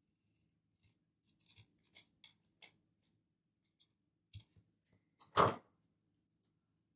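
Small scissors snipping the edge of a paper planner sticker in a run of quick, short cuts, followed about five seconds in by one louder knock.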